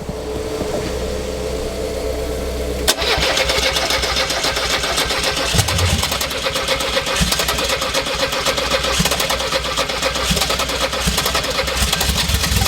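A jump-started turbocharged VW Gol engine on a weak battery being cranked on the starter: a steady hum, then about three seconds in the starter kicks in and turns the engine over continuously, with a few uneven firings, without it catching.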